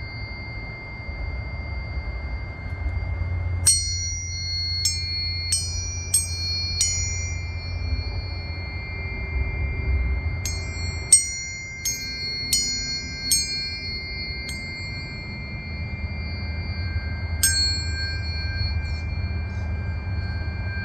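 Tuning forks in C, G and F, struck about a dozen times in quick runs, each sharp strike leaving a clear ringing tone that carries on under the next. Several forks sound together and overlap.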